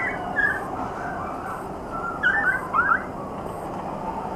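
Many caged beagles howling and crying together in a continuous, wavering chorus, the distress cries of dogs kept indoors. A few louder, higher cries stand out: one at the start, another about half a second in, and a cluster between two and three seconds in.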